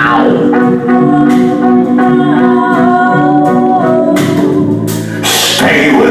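Music from a song: a melody line of held notes over sustained chords, with a change in the arrangement about four seconds in.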